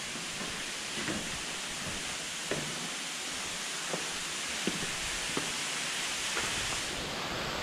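Steady rushing of water in the gorge, with faint footsteps on stone steps about once a second.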